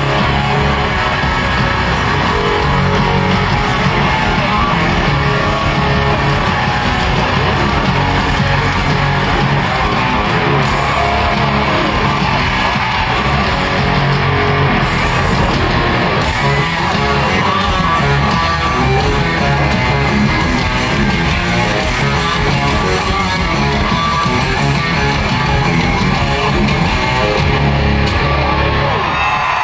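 Live country-rock band playing loud with electric guitars and drums, heard from within a stadium crowd.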